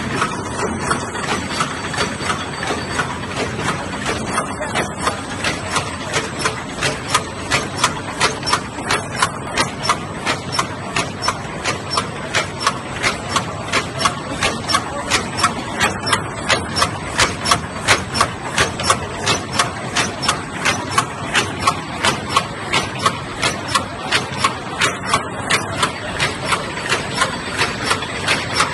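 Paper box tray erecting machine running, clacking evenly about three times a second over a steady mechanical hum.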